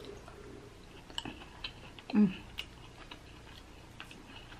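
Close-miked eating of boiled crab legs: scattered small clicks and cracks of shell and mouth sounds as meat is pulled out and chewed, with one brief, louder low hum-like sound from the mouth about two seconds in.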